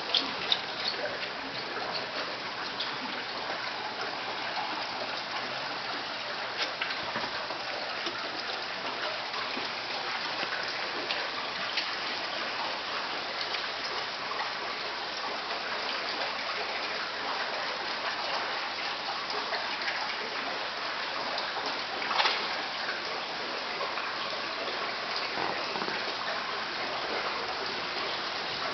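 Steady rushing and splashing of water, with scattered small splashes and one louder splash about twenty-two seconds in.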